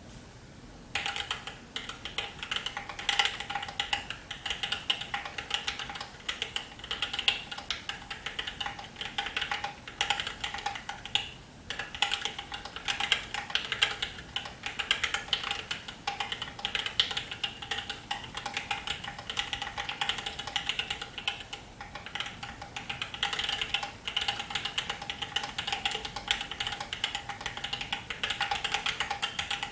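Fast, continuous typing on a mechanical keyboard with Thic Thock Marshmallow linear switches (springs lubed with Krytox 205), a copper plate, a frosted acrylic Alice-layout case and GMK keycaps. It is a dense run of keystroke clacks that starts about a second in and pauses briefly once near the middle.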